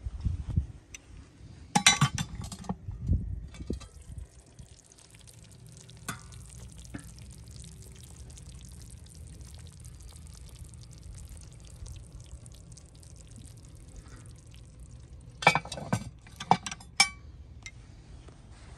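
Clinks of a cast-iron Dutch oven lid being handled, about two seconds in and again in a cluster near the end, with a faint steady hiss between them.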